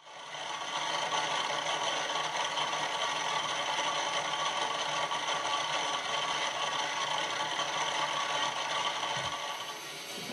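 Continuous dense rattling, scraping noise with faint held tones running through it; it comes in within the first second and eases off near the end.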